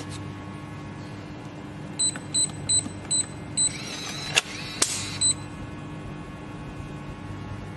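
Electronic keypad smart deadbolt: five short high-pitched beeps as the keys of the user code are pressed, then the lock mechanism whirs with a couple of sharp clicks as it unlocks, and one more beep.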